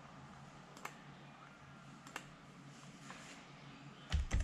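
A few scattered clicks from a computer mouse and laptop keys over a faint room hum, followed near the end by a quick cluster of louder low thumps, like a hand knocking against the desk.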